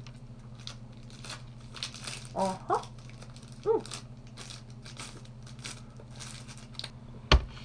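Plastic candy-bar wrapper crinkling as it is handled, with a couple of brief vocal sounds in the middle and a single sharp knock near the end.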